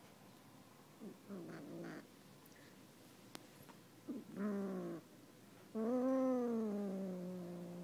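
Sphynx kitten giving low, drawn-out yowls while biting and wrestling a plush teddy bear: three calls, the last the loudest and longest, its pitch sagging as it goes on. It is the possessive growling yowl a cat makes over prey.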